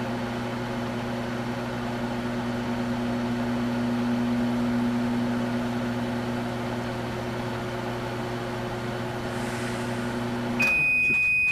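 Microwave oven running with a steady hum; near the end the hum stops and a single long high beep starts, the oven signalling that its cycle has finished.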